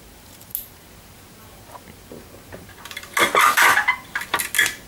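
A single click, then about a second of loud crackly ripping followed by a few short snaps: clear adhesive tape being pulled off and torn.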